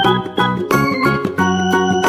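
Upbeat children's background music with a bright chiming melody over a steady bass line.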